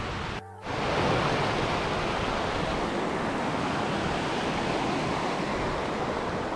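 Steady rushing of a mountain stream, an even hiss of water that cuts in after a brief dropout about half a second in.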